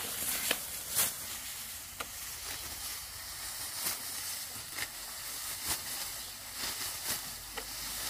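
Ripe rice stalks being cut and gathered by hand, with crisp swishing and rustling strokes coming irregularly every half second to a second over a steady hiss of moving straw.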